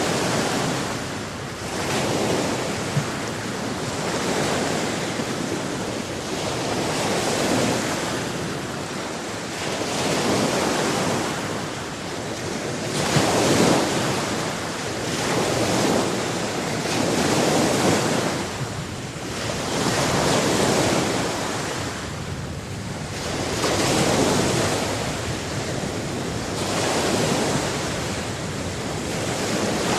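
Ocean waves washing onto shore, a continuous surf hiss that swells and ebbs with each wave, about every three to four seconds.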